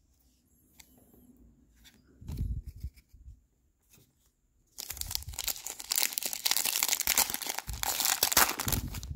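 Foil wrapper of a basketball trading-card pack crinkling and tearing open. It starts about halfway through and runs loud and continuous for about four seconds. Before it come a few soft, low thumps of cards and packs being handled.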